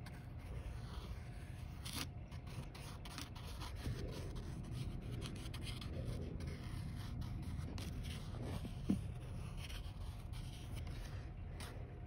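A pencil's eraser end dragging and poking through fine white sand: a soft, faint scraping with scattered small ticks, and one sharper tick about nine seconds in.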